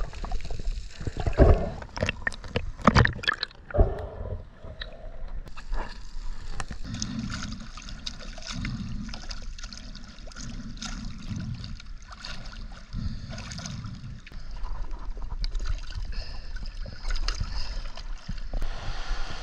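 Water gurgling and crackling around the camera underwater for the first few seconds, then water sloshing and splashing at the surface around a diver and a dive float, with uneven surges.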